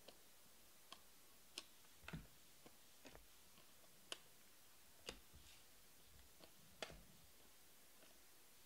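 Faint, irregular clicks of Panini Prizm trading cards being flipped one by one through a stack in the hand, about one a second, thinning out near the end.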